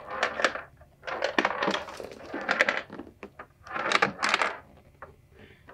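Two loose objects rattling and clattering inside a cardboard shipping box holding a rack-mount guitar preamp, in several bursts as the box is tipped back and forth. Something has come loose in transit; the owner hopes it is two vacuum tubes knocked out of their sockets.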